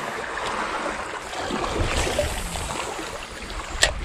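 Sea water washing and sloshing, with a single sharp click near the end.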